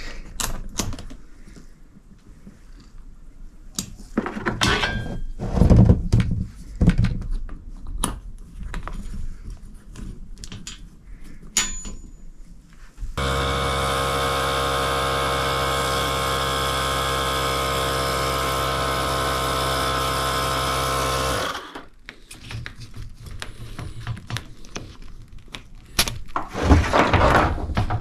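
Portable electric tire inflator running for about eight seconds, a steady pitched hum that starts and stops abruptly past the middle, pumping air into a tubeless hand truck tire held to its rim by a ratchet strap so the bead can seat and seal. Before it, scattered knocks and clicks of the strap and wheel being handled.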